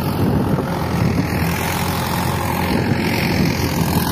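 Mahindra farm tractor's diesel engine running steadily.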